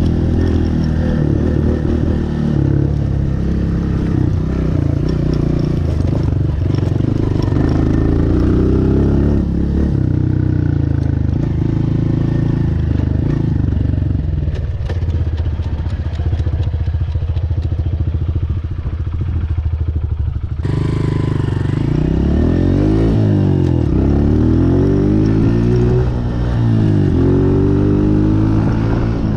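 Honda CRF125F big wheel dirt bike's single-cylinder four-stroke engine running under way, the revs climbing and dropping through gear changes. About twenty seconds in the sound changes suddenly, and the engine note sweeps up and down repeatedly after that.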